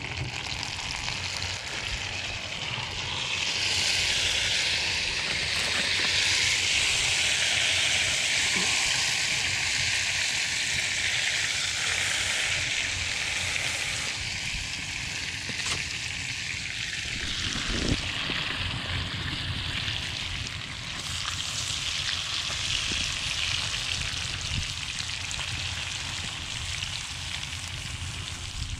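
Red rock cod fillets sizzling in butter in a cast-iron skillet over a wood fire. The steady frying hiss gets louder a few seconds in as the fillets go into the pan, and there is a single sharp knock about two-thirds of the way through.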